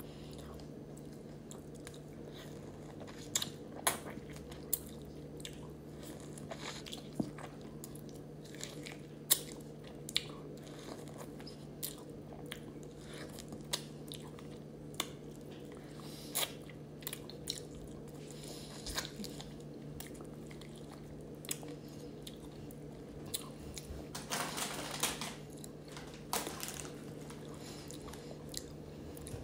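A person biting and chewing wedges of raw lemon, with scattered sharp wet mouth clicks and a longer run of chewing near the end, over a steady low hum.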